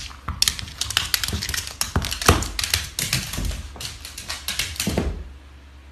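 Rapid, irregular tapping and clicking, many light knocks a second, thinning out near the end.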